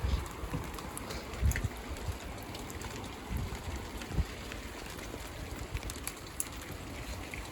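Light rain falling steadily, with scattered sharp ticks of drops and a few low thumps, the strongest about a second and a half in and again about four seconds in.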